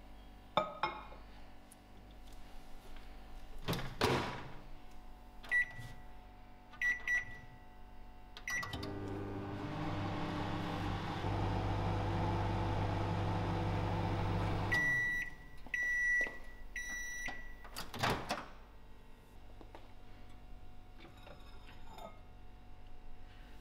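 Microwave oven being run: a thump and a few short keypad beeps, then the oven running with a steady hum for about six seconds, which stops abruptly and gives way to a string of end-of-cycle beeps, followed by another thump.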